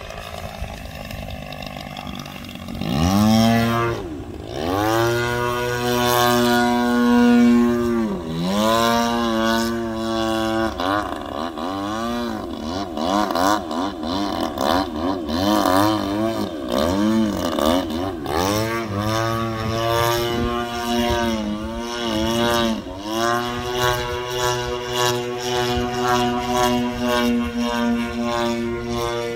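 Engine and propeller of a large radio-controlled aerobatic airplane, a GP76 engine turning a 24x9 Falcon prop. The engine is faint at first and grows loud about three seconds in. Its pitch then repeatedly dips sharply and swoops back up as the plane flies through its manoeuvres.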